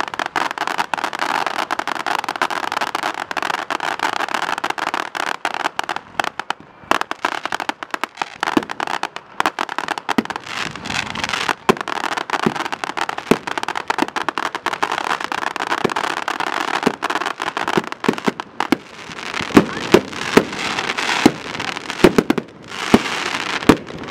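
Aerial fireworks display: a dense, continuous crackling and popping of bursting shells, with a run of louder bangs in the last few seconds.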